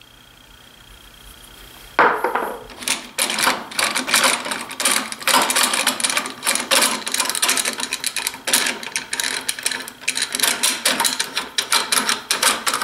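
Bessey K-body clamp's sliding jaw worked rapidly back and forth along its steel bar, a dense run of clicks and clacks starting about two seconds in; the bar has been cleaned of glue residue and the jaw oiled, and it now slides freely.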